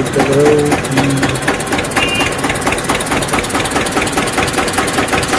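A small engine running steadily with a rapid, even ticking. Something voice-like is heard briefly at the start.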